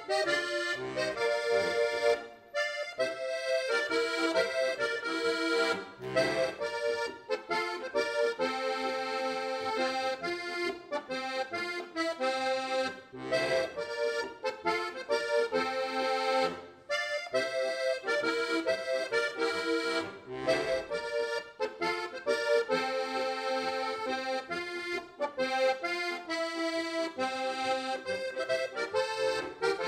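Diatonic button accordion (frajtonarica) played solo: a lively melody over a steady rhythmic bass-and-chord accompaniment, with brief dips about two seconds in and just past the middle.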